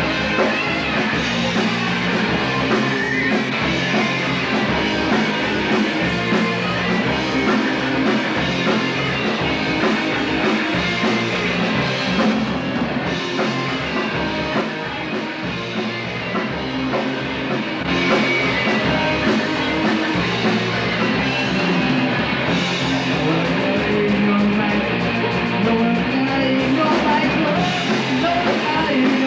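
Rock band playing a punk rock song at a steady, driving beat, with drum kit, guitar and bass.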